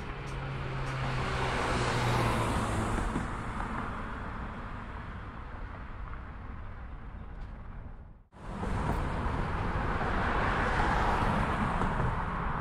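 Slow freight train of tank cars rolling over a railroad bridge: a steady rumble mixed with road traffic noise that swells twice. The sound cuts out abruptly for a moment about eight seconds in.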